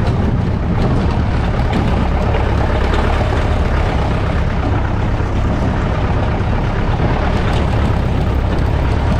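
Off-road jeep driving slowly over a rough stone-paved track: a steady low engine rumble, with a few light knocks and rattles from the vehicle jolting over the stones.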